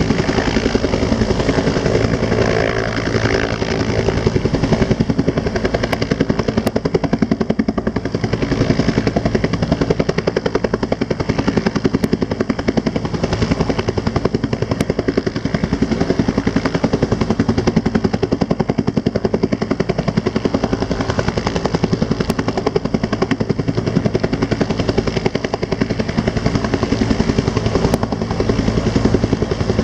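Helicopter running close by, its rotor blades beating in a rapid, steady chop.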